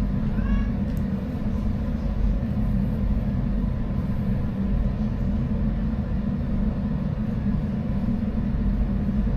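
A steady low rumble with no distinct events, like machinery or air moving, and a faint short cry about half a second in.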